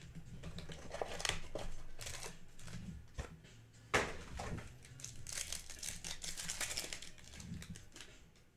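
A foil trading-card pack is handled and torn open with crinkling and tearing, densest in the second half. There is a sharp tap just before the middle.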